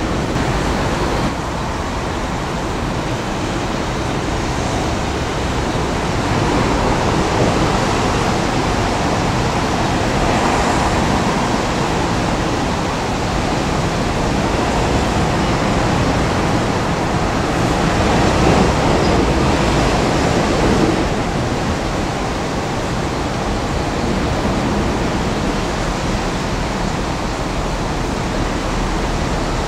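Hydraulic demolition excavator working its crusher into the stainless-steel body of a double-deck E217 series Green car: a steady, noisy rumble of engine, hydraulics and tearing metal that swells louder several times.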